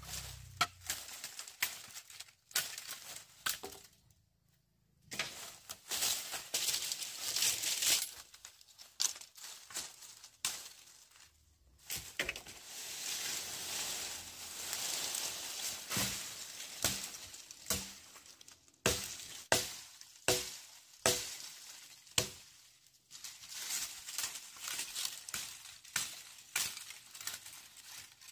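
Irregular sharp knocks and cracks, some ringing briefly, with longer stretches of rustling between them.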